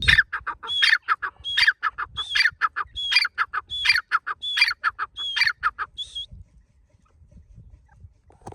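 Francolin (teetar) calling: about eight quick phrases in a row, each a fast string of notes, stopping about six seconds in.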